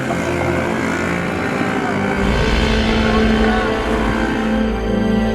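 A dense, steady rumbling noise, likely a motor, grows stronger about two seconds in; music comes in near the end.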